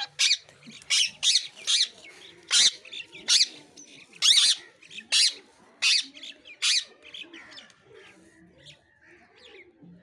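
Indian ringneck parakeet giving a rapid series of about ten loud, shrill calls in the first seven seconds, then softer chatter.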